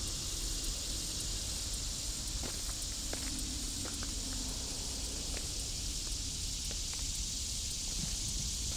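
Steady high-pitched drone of a summer insect chorus, with a low rumble underneath and a few faint clicks.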